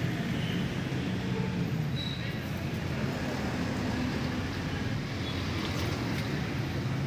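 Steady low background rumble, even in level throughout, with most of its weight in the low bass.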